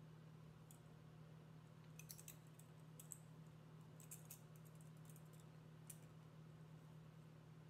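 Faint, scattered clicks and ticks of thin wire wrap and metal binder clips being handled against an agate slice, over a steady low hum.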